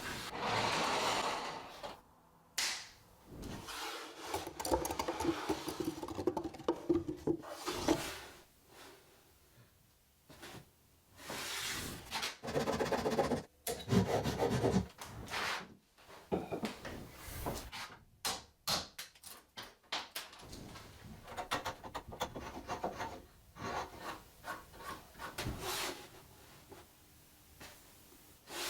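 Oak being worked with hand tools in a run of short bursts of rubbing and rasping, with clicks and taps in between.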